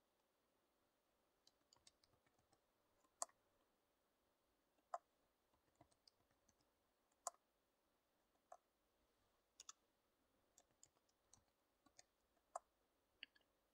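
Faint, irregularly spaced single clicks from an ASUS laptop, about a dozen, three of them louder, in otherwise near silence.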